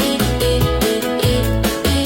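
Upbeat background music with a steady beat, plucked guitar-like notes and a strong bass line.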